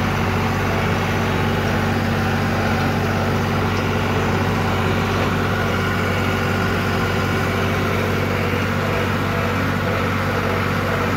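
John Deere tractor's diesel engine running steadily, heard from the operator's seat.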